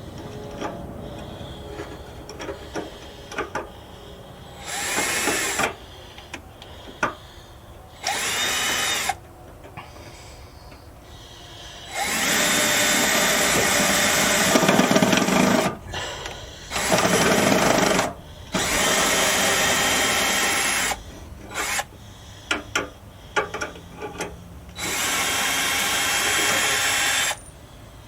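Power drill driving self-tapping sheet metal screws into a car's fender bracket, running in six short runs of one to four seconds, with clicks and knocks of handling between them.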